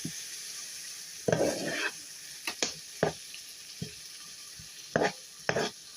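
Mince and sweet corn sizzling in a frying pan, with a utensil scraping and knocking against the pan about eight times as it is stirred.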